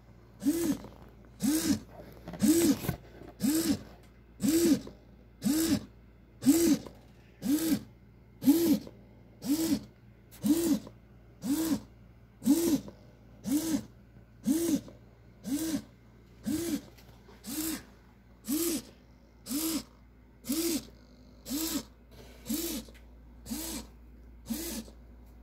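Small hobby servo motors whirring in short bursts about once a second, each burst rising and then falling in pitch as the servos swing back and forth under Arduino control.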